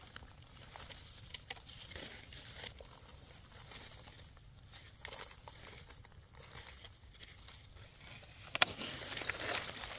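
Dry leaf litter rustling and crackling as someone moves through it, sparse and faint through the middle and busier near the end, with one sharp crack about eight and a half seconds in.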